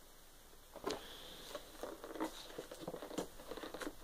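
Handling of a cardboard-and-plastic toy box: scattered faint clicks and rustles, the sharpest about a second in.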